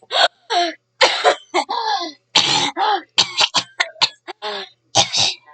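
A person coughing over and over, about a dozen harsh coughs in quick succession, with a longer, drawn-out cough about two and a half seconds in.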